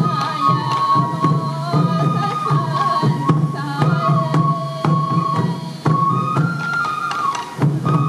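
Traditional Sansa odori festival music: a Japanese bamboo flute (fue) playing a melody of held notes stepping up and down, over regular taiko drum beats.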